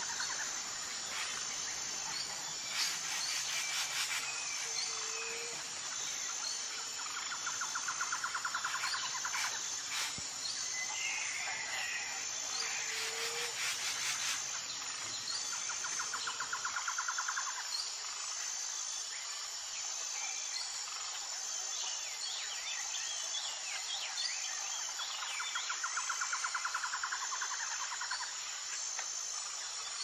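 Outdoor nature ambience: a steady high insect drone with pulsing trills that come back every few seconds, and scattered bird chirps. A low background rumble drops out about halfway through.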